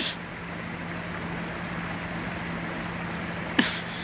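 A steady low hum under outdoor background noise, broken by two brief sharp sounds, one at the very start and one about three and a half seconds in.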